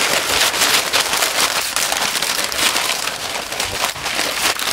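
Pink butcher paper rustling and crinkling without a break as it is folded and rolled tightly around a smoked brisket.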